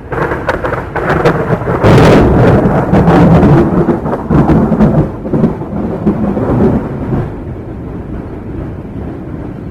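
Thunder: sharp crackling at first, then a long, loud rolling rumble that slowly dies away over the last few seconds.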